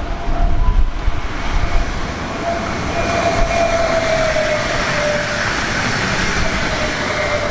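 A train running past on the line: a steady rushing noise that builds after the first second, with a faint whine that drifts slightly lower in pitch.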